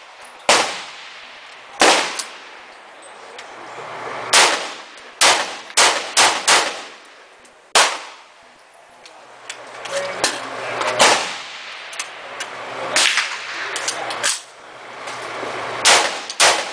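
Single gunshots from a Norinco CQ-A1 AR-15 carbine with a 10-inch barrel and from neighbouring lanes, about a dozen at uneven intervals. There is a quick run of four shots a little over five seconds in and a pair near the end. Each shot cracks and rings on in the range.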